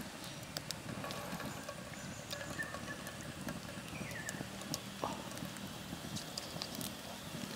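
Open wood fire crackling under a pan, with many scattered sharp pops over a steady low hiss.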